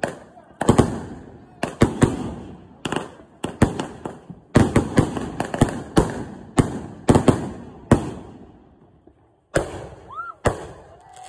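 Consumer firework cake firing shot after shot, each shot a sharp bang followed by crackling. The bangs come about two a second, stop about eight seconds in, and two last bangs follow near the end.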